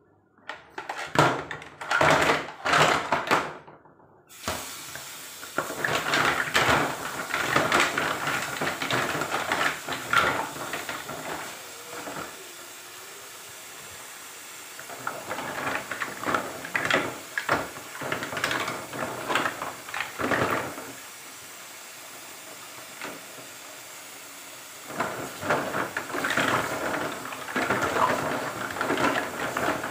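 Green mussels tipped from a plate clatter into a plastic basin, then a tap starts running into the basin with a steady hiss while hands rub and stir the mussels in the water, their shells clacking together in bursts.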